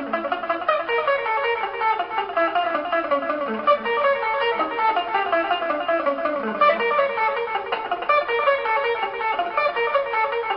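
Electric guitar played in fast lead runs: rapid single notes climbing and falling in quick succession, without a break.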